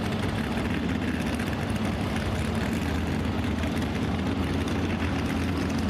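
Altered stock pulling truck, a 1970s Ford F-series pickup, idling steadily with a low, even engine note.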